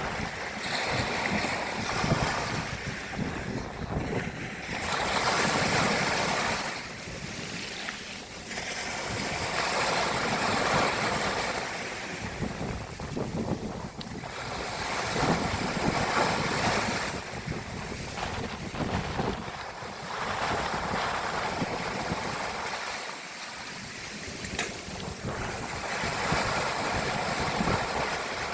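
Sea waves breaking and washing on the shore, the surf swelling and falling back every few seconds, with wind rumbling on the microphone.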